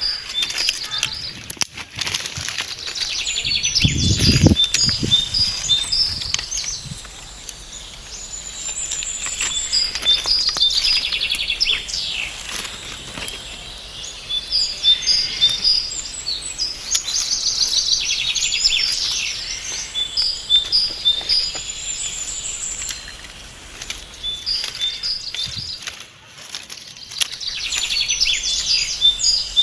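Several wild birds chirping and trilling, with repeated short high notes coming in bursts. A brief low sound about four seconds in.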